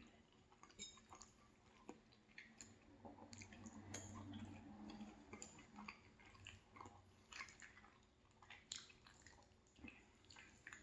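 Faint close-up chewing of a mouthful of food, with small wet mouth clicks and smacks.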